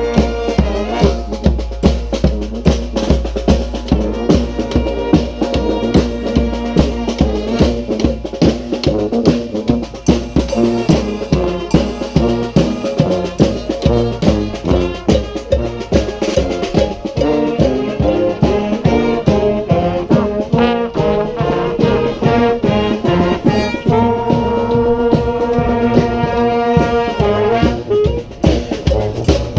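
Street brass band with drums playing a rock-style tune: trombones and trumpets over a steady, regular bass-drum beat, with a long held brass chord about 24 seconds in.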